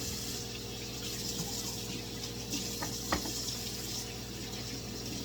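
Tap water running steadily into a sink while dishes are washed by hand, with two sharp knocks about three seconds in.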